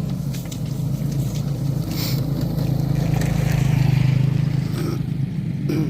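An engine running steadily, its low hum swelling a little about four seconds in.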